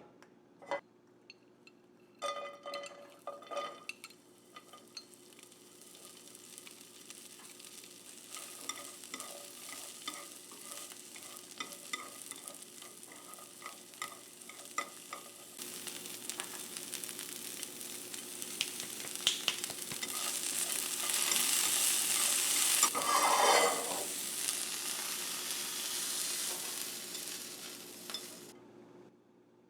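Food sizzling in a hot frying pan as it is stirred with a utensil. A few clinks come first, then the sizzle grows louder, flares up briefly about two-thirds through, and cuts off suddenly near the end.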